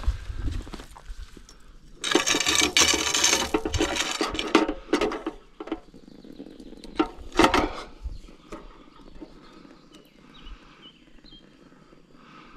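Rustling and rubbing of a wet weigh sling being handled and lifted onto a dial scale, loudest for a couple of seconds early on, with a few sharp knocks afterwards.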